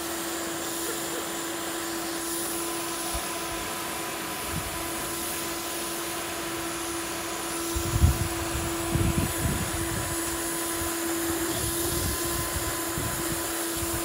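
A canister wet-and-dry vacuum cleaner runs steadily with a constant hum and hiss as it vacuums moss off roof tiles. A few low thumps come a little past halfway.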